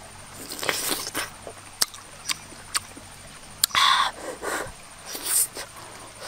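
A person eating a grilled duck egg close up: sharp mouth clicks and lip smacks as she bites and chews the soft egg, with a louder breathy burst about four seconds in.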